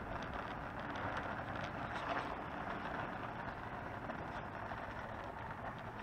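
Oxelo Town 9 kick scooter rolling over asphalt: a steady rumble from its small wheels, with faint light rattles and clicks.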